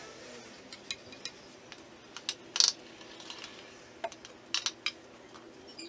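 Spoon clinking and scraping against a steel pot and a metal baking tray as tomato sauce is ladled out: a scatter of sharp clicks, the loudest about two and a half seconds in and a quick cluster near the end.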